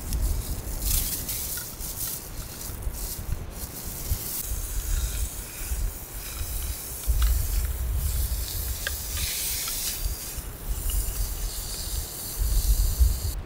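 A portable gas stove's burner hissing under an empty frying pan, then ground meat sizzling in the pan as chopsticks break it up, with a couple of light taps about seven and nine seconds in. Wind rumbles on the microphone.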